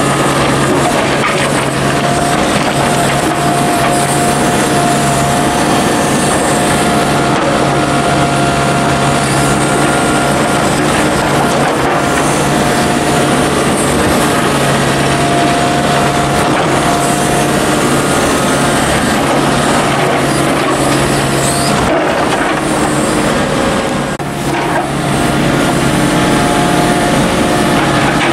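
Volvo EC55D mini excavator's diesel engine running steadily as the machine works, with a steady whining tone over the engine hum. The sound drops briefly a little before three-quarters of the way through, then comes back.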